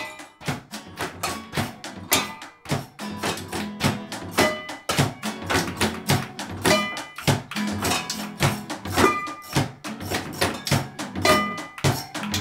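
Improvised household-object percussion band playing with an acoustic guitar: fast, dense rhythmic knocking of drumsticks on a plastic chair and other objects, with a struck metal bowl and cymbal ringing briefly over low strummed guitar notes.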